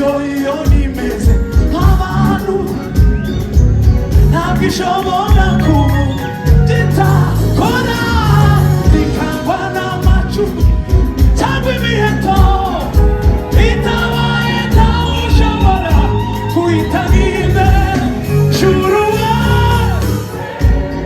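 Gospel song: voices singing over band accompaniment with a heavy bass.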